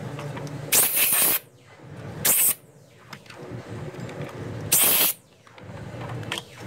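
Three short, loud bursts of sharp hiss about two seconds apart, with a fainter fourth near the end, over a steady low hum.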